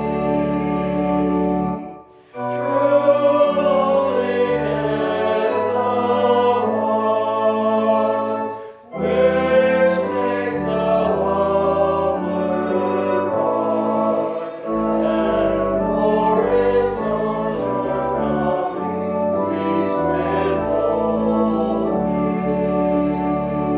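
A choir singing a slow piece in sustained chords, with brief pauses about two and nine seconds in.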